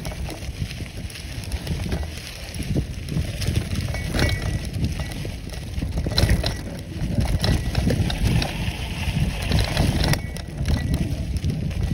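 Bicycle riding fast over a dirt trail strewn with dry leaves: the tyres make a continuous low rumble and crunch, and there are scattered clicks and rattles over the bumps.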